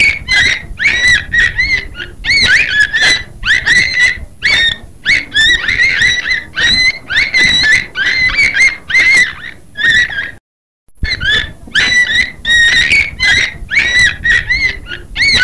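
Beluga whale calling in a rapid string of chirps and squeals, each a quick rise and fall in pitch, several a second, broken by a short gap about ten seconds in.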